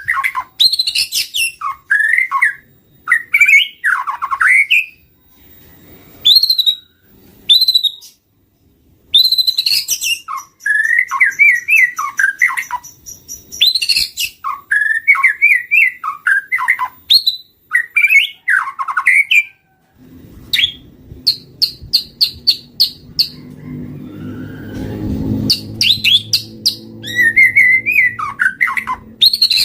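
White-rumped shama (murai batu) singing: loud, varied whistled phrases of quick sliding notes, repeated with short pauses, some high clipped notes among them. A low hum rises underneath from about two-thirds of the way through.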